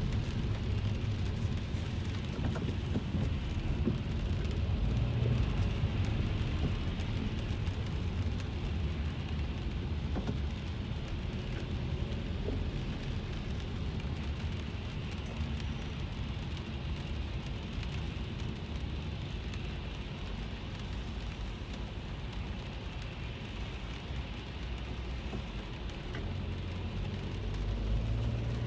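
Rain falling on a car's roof and windshield, heard from inside the cabin over the steady low rumble of the car driving in traffic.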